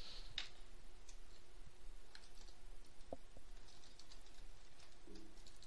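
Faint computer keyboard keystrokes: scattered single taps typing short commands, with a small cluster of taps in the second half.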